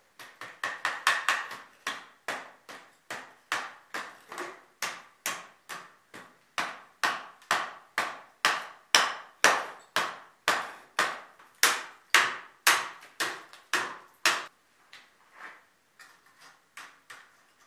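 Steady run of sharp knocks, about two to three a second, as cement is knocked out of a cement-mixing container to clean it. The blows stop about three seconds before the end, with a few lighter taps after.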